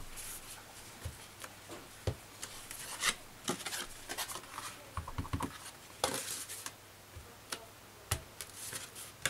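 Hands handling a cardstock gift box and a clear acrylic stamp block on a craft mat: paper rustling and sliding, with scattered light clicks and taps.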